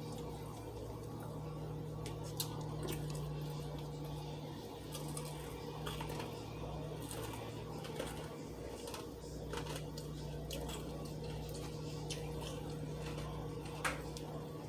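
Scattered clicks and light taps of a utensil on a plate while eating, over a steady low hum from a lawn mower running outside.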